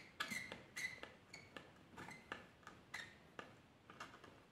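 Faint, irregular small clicks and scrapes of a thin metal tool working around the edge of a hard drive's metal cover to pry it loose, a few clicks ringing briefly.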